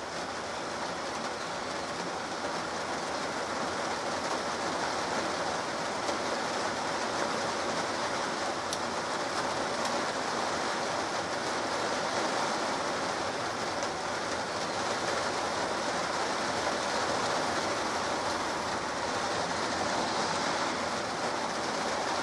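Steady rain falling, an even, continuous hiss with no change in level.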